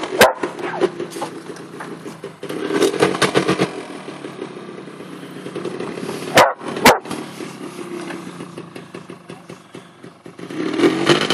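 ATV engine running as the quad is ridden through snow, getting louder for about a second a few seconds in. A few short sharp sounds cut in near the start and about two-thirds of the way through.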